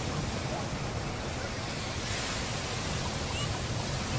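Mediterranean surf washing onto a sandy beach: a steady rush of waves, swelling slightly about two seconds in.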